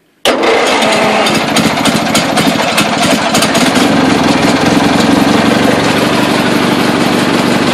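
A 1980 International Cub Cadet 582 garden tractor engine starting from cold with the choke on. It catches suddenly about a quarter second in and then runs steadily.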